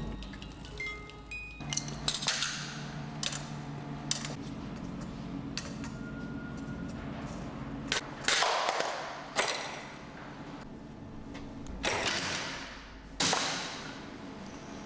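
Wooden and metal parts of a hand-built chain-reaction contraption snapping and clattering as its stages trip one after another: a string of sharp snaps and knocks a few seconds apart, some ringing out briefly, over a low steady hum.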